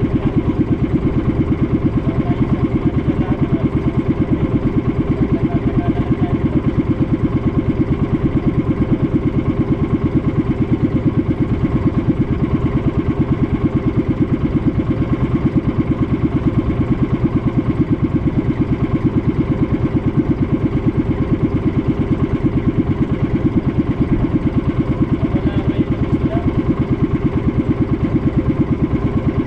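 Small fishing boat's engine running steadily at an even speed, with a fast, unbroken pulse.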